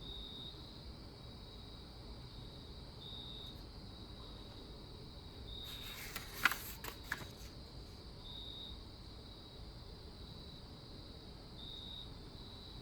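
Crickets trilling steadily, with louder chirps every two or three seconds, and a short cluster of sharp clicks about six seconds in.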